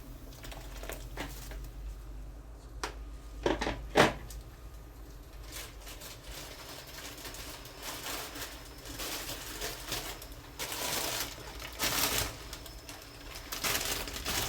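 Kitchen handling sounds: a few sharp clicks and knocks, the loudest about four seconds in, then a stretch of rustling and scraping in the second half.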